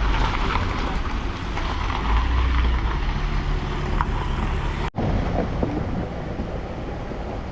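Vehicle engine hum with road and wind noise, as if riding in a moving vehicle. The sound cuts out abruptly for an instant near the five-second mark, where two stretches of footage are joined.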